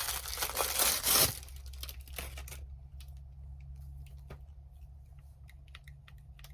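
Plastic packaging crinkling and rustling as it is handled, loudest in the first second or so, followed by a few light clicks and handling taps, then quiet over a faint low hum.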